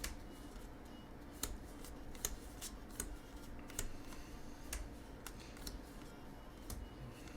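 Trading cards being handled and sorted on a table: light, irregular clicks and snaps about once a second over a soft rustle.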